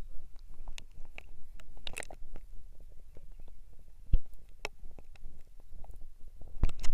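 Muffled river water gurgling and sloshing around a half-submerged camera, with scattered sharp clicks and knocks, a loud one about four seconds in and another near the end.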